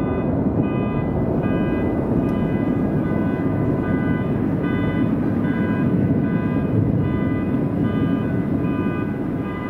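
A repeating electronic bell signal, its tones sounding on and off about one and a half times a second, over a steady low rumble.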